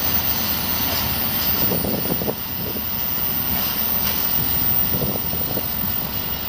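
Freight train of hopper wagons rolling along the rails, a steady rumble with a couple of brief clusters of wheel clatter, about two and five seconds in.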